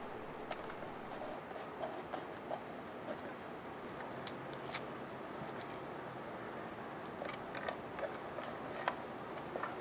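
Steady rush of the LED lamp's heatsink cooling fan, with scattered light clicks and taps as fingers press a label onto the 3D-printed plastic shell beside a toggle switch.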